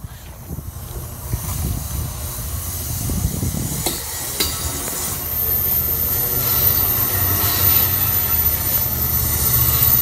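Capitol Corridor passenger train rolling on the rails: a steady low rumble of wheels and cars that grows gradually louder, with a couple of clicks about four seconds in and a thin high wheel squeal from about halfway.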